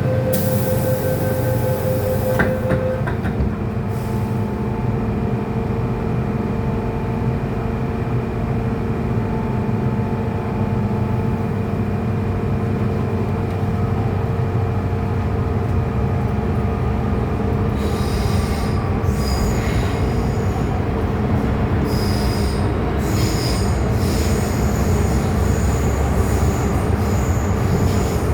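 MTR Tseung Kwan O Line M-Train running on the rails: a steady low rumble with a motor hum, and a short hiss at the very start. High-pitched wheel squeal comes in on and off over the last third.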